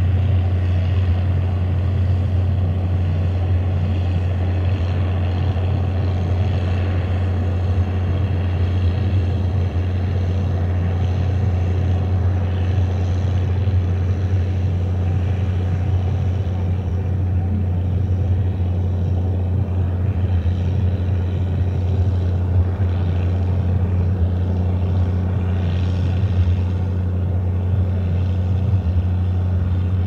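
Ford 8340 tractor's straight-piped diesel engine running steadily under load as it pulls a round baler through hay, a deep even exhaust note.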